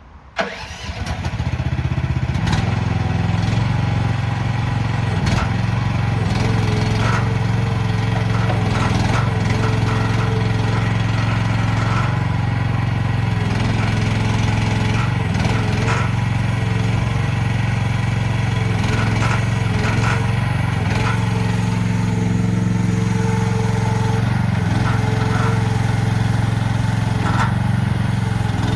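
CFG H15R mini excavator's diesel engine starting about half a second in, then running steadily, with occasional short knocks.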